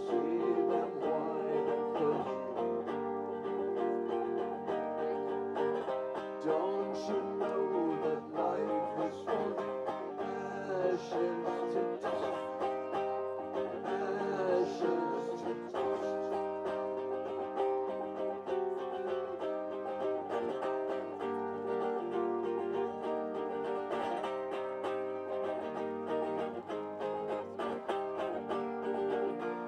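Acoustic plucked-string instruments playing an instrumental tune of steadily picked notes.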